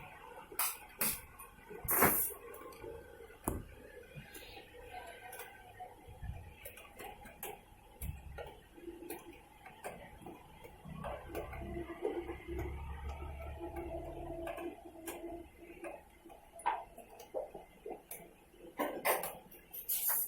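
LG Fuzzy Logic 6.5 kg top-load washing machine in its wash cycle, agitating with irregular clattering knocks ("khad-khad") and a low motor rumble for a few seconds midway; the owner blames a faulty gearbox.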